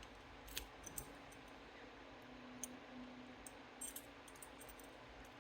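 Faint, scattered small clicks from handling a Yale 112 disc detainer lock and its pick while the discs are checked and turned.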